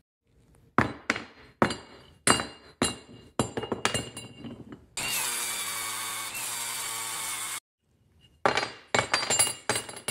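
Hacksaw cutting cast aluminum, about two strokes a second, each stroke sharp at the start with a metallic ring from the part. In the middle a steady mechanical sound runs for two to three seconds and stops abruptly. The strokes then resume.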